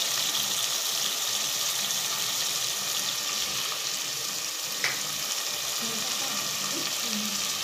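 Onions sizzling as they fry in oil in a pan, on their way to golden brown, with one short tick about five seconds in.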